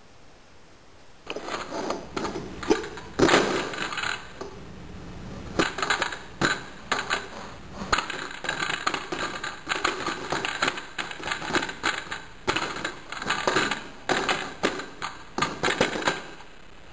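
Plastic toys handled on a tabletop, clacking and knocking in irregular clicks that start about a second in.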